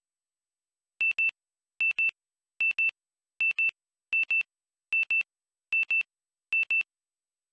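Electronic beeper of a camcorder sounding eight evenly spaced double beeps on one high pitch, a pair about every 0.8 seconds, starting about a second in.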